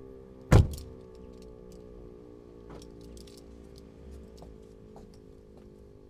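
E57 motor siren's tone, faint and sliding slowly down in pitch. A single sharp knock stands out about half a second in.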